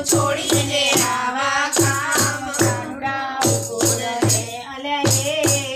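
Women's voices singing a Gujarati Krishna bhajan together, with rhythmic hand clapping and a hand-held percussion instrument keeping a steady, even beat.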